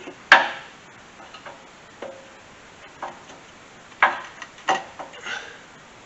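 Sharp metal clanks and knocks as the hydraulic lift cylinder is worked back into its mount on the skid steer: a loud one just after the start, a few lighter ones, then three more close together near the end.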